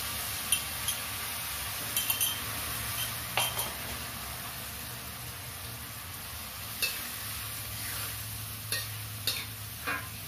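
Metal spoon stirring and scraping chopped vegetables around a metal wok, with about a dozen short clinks against the pan, over a steady sizzle of the vegetables frying in milk and water.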